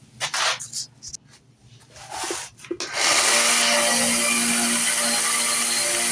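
A few short rubbing and handling sounds, then about three seconds in an electric sander switches on and runs steadily with a constant hum, used to sharpen the knife's edge.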